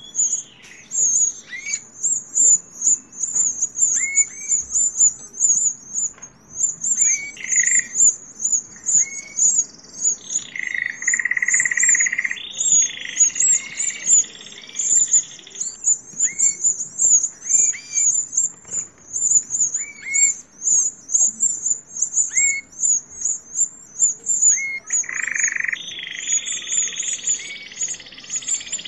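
Canary chicks begging while being hand-fed: a rapid, high-pitched peeping repeated several times a second, with shorter lower chirps every second or two and a few longer whistled notes from canaries.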